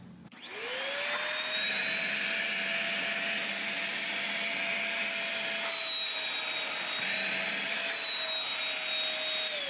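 Handheld vacuum cleaner switched on, its motor whine rising quickly to a steady pitch as it sucks coffee grounds out of a fabric apron. Near the end it is switched off, and the whine falls as the motor spins down.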